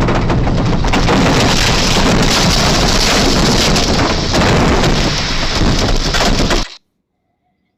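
Heavy storm rain pounding down with gusting wind, a loud, dense rushing noise that cuts off abruptly near the end.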